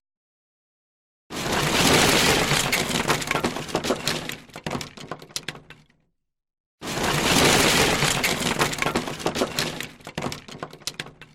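Sound effect of wooden planks crashing and splintering: a sudden crash followed by a few seconds of cracking and clattering debris that thins out. It plays twice, about a second in and again about seven seconds in, with silence between.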